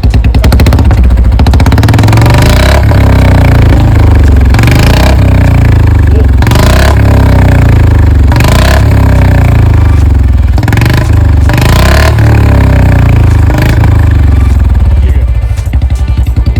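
Royal Enfield Bullet 350's single-cylinder engine running through an aftermarket 'Bada Punjab' silencer: a loud exhaust thump, blipped up several times with the throttle and dropping back to idle.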